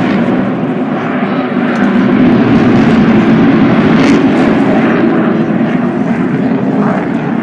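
A fixed-wing aircraft's engine noise, loud and continuous, easing a little near the end.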